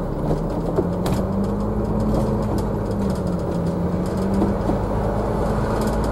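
Engine and road noise heard inside a moving vehicle's cabin at town speed: a steady low rumble with an engine note that climbs about a second in, sags a little midway, then picks up again.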